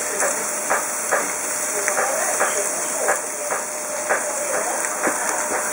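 Scotch fillet beef steaks sizzling on a hot barbecue grill plate: a steady hiss with scattered crackles and pops, as a steak is turned with metal tongs.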